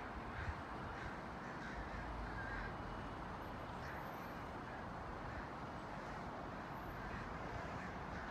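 Steady outdoor background noise with a few short bird calls scattered through it.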